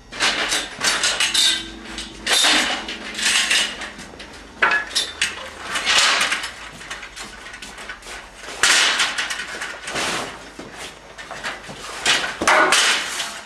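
Clattering and rustling of hard objects being handled, in several irregular bursts a second or two long.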